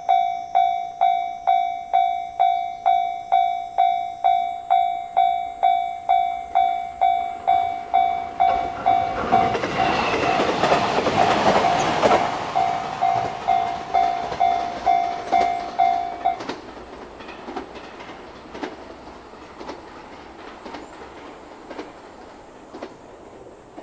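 Japanese level-crossing warning bell ringing steadily, about one and a half strokes a second, while a 223 series electric train passes through, its rumble loudest about ten to twelve seconds in. The bell stops about sixteen seconds in, leaving faint scattered clicks.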